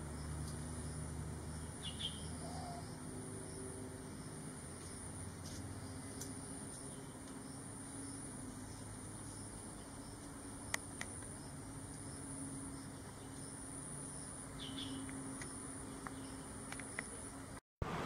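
Natural outdoor ambience: a steady high-pitched insect drone, with two short bird chirps, about two seconds in and again near fifteen seconds.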